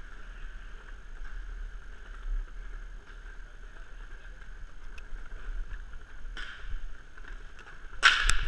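Inline skate wheels rolling on a plastic sport-court floor, a steady hiss and rumble. Near the end, several loud sharp clacks of hockey sticks and puck in a scramble.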